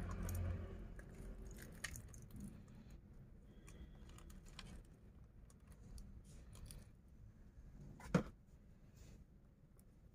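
Faint handling noise of small plastic plant pots and a plastic watering can among potted succulents: scattered light clicks and scrapes, with one sharper knock about eight seconds in.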